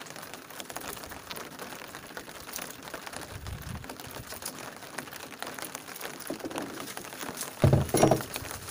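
Rain pattering, a haze of many small ticks, with a dull thump about halfway through and a louder dull thump near the end.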